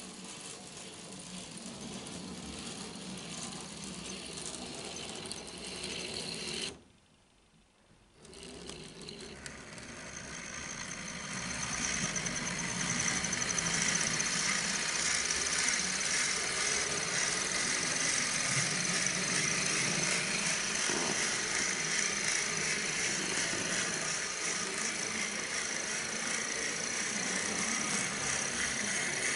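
Small electric gear motor of a 3D-printed O-scale model locomotive running, with a steady whir of motor and gears and its metal wheels rolling on the track. It drops out briefly about seven seconds in, and grows louder from about ten seconds in, then stays steady.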